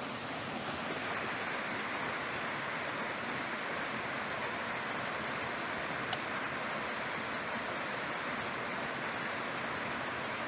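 Steady rush of flowing water. About six seconds in there is a single short, sharp click with a high ring.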